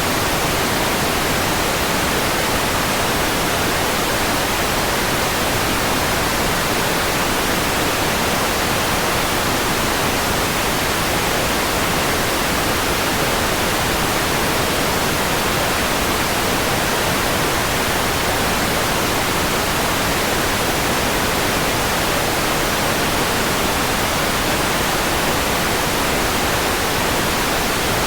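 Steady white noise: an even, unbroken hiss across the whole range of pitch, unchanging in level.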